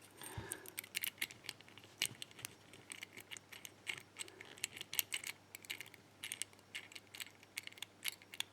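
Faint, irregular small metallic clicks and clinks of a key and tools worked in a partly disassembled padlock while its core is being worked loose.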